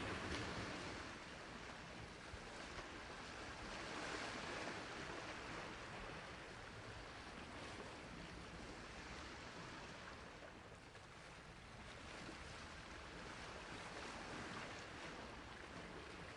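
Sea waves washing onto a shore: a steady rush of surf that swells and ebbs every few seconds, loudest about a second in and again around four seconds.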